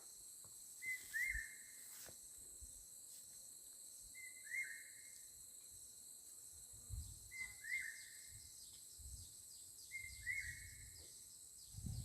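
A bird faintly repeating a short chirping call about every three seconds, over a steady high-pitched insect drone.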